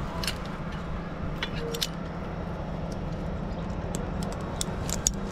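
Stick-boom crane's engine running steadily at a low hum, with scattered light metallic clicks and clinks.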